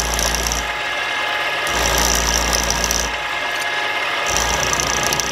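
Milling machine running with a twist drill boring holes in a steel block: a steady motor and gear hum, with the drill cutting in three spells of about a second and a half each, adding a hiss and a low rumble over the hum.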